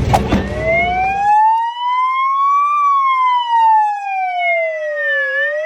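Wailing siren in a slow rise and fall: the pitch climbs for about two and a half seconds, falls for about as long, and starts climbing again near the end. Outdoor background noise drops away about a second in, leaving the siren alone.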